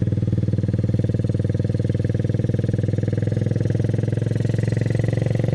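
Small motorcycle engine of a Philippine tricycle (motorcycle with passenger sidecar) running steadily on the move: a low, even drone with a fast firing pulse.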